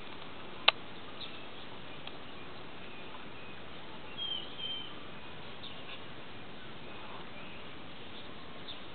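Steady outdoor hiss with a single sharp click about a second in, and a bird chirping briefly twice near the middle.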